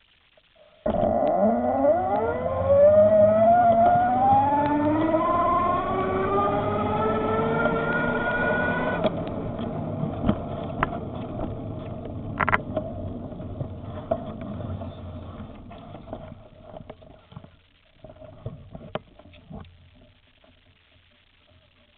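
Electric bike motor whining as the bike pulls away, the whine rising steadily in pitch for about eight seconds and then cutting off. Road and wind noise then fades away, with a few small knocks.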